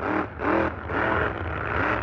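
Monster truck engine revving in quick throttle blips, about two a second, each rising and falling in pitch, over a low steady rumble.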